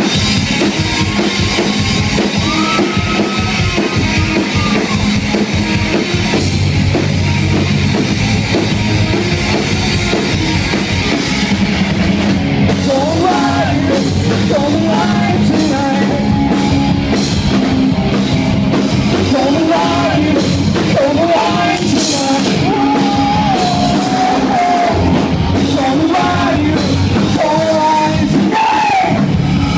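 Live rock band playing loud: electric guitar, bass guitar and drum kit. A singing voice comes in about halfway through and carries on over the band.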